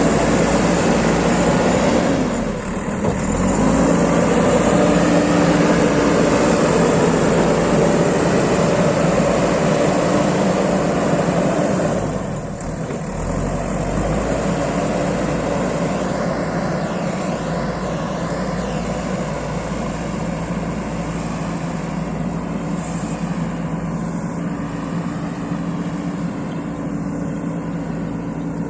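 JCB 3DX backhoe loader's diesel engine running steadily while it digs and loads mud. The engine note dips briefly twice, about two and a half seconds and about twelve and a half seconds in.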